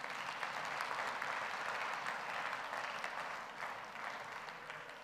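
Audience applauding, dying down near the end.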